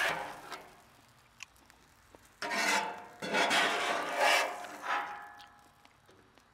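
A metal spatula scraping across the steel top of a flat-top griddle, scooping up fried rice. A scrape fades out just after the start, then three more strokes follow between about two and a half and five seconds in.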